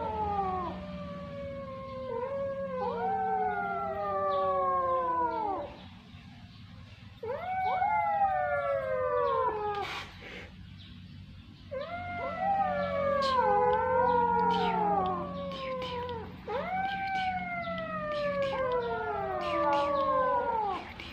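Young kittens meowing: long drawn-out calls, each sliding slowly down in pitch, two or more voices often overlapping, with two short pauses between bouts.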